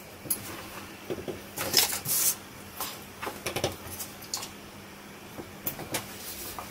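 Clear acrylic stamp block and cardstock being handled while stamping: short irregular clicks and taps with brief rustles and slides of paper, the loudest about two seconds in.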